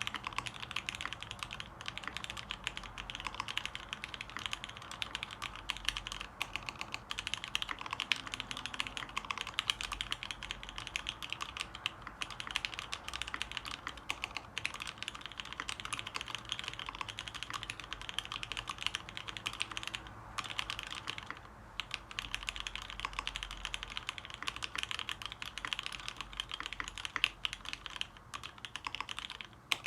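Steady, fast typing on a Dolphin v2 custom mechanical keyboard with lubed vintage Cherry MX Black linear switches on 60 g springs, mounted in a polycarbonate plate: a dense run of keystrokes with short pauses around the 20-second mark.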